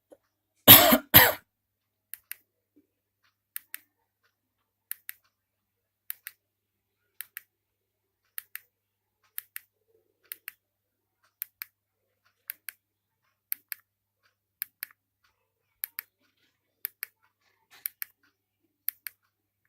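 Handheld remote control's button pressed over and over, each press giving a pair of small clicks about a fifth of a second apart, roughly once a second, some sixteen times. A loud short burst of noise comes about a second in.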